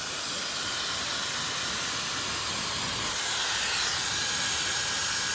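Dyson Supersonic HD03 hair dryer blowing steadily: an even rush of air with a faint high whine.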